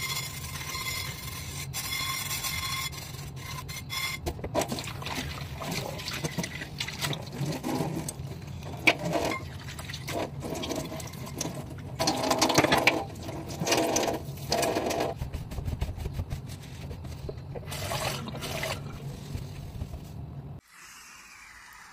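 Dishes being washed in a stainless steel kitchen sink: water splashing with irregular knocks and clatter of dishes, over a steady low hum. It all cuts off suddenly near the end.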